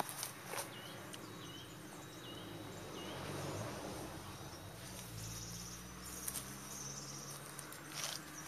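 Outdoor garden ambience: a short high chirp repeating a little faster than once a second, stopping about three seconds in, over a faint steady low hum, with a couple of light knocks or steps near the start and end.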